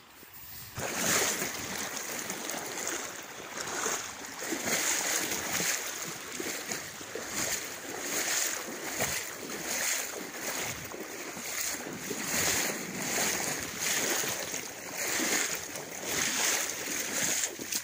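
Someone wading through a shallow river, the water sloshing and splashing with each stride about once a second.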